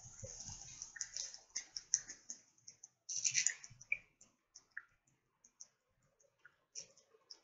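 A man drinking beer straight from a glass bottle: a run of short, wet gulping and swallowing clicks, with a longer, louder noise about three seconds in.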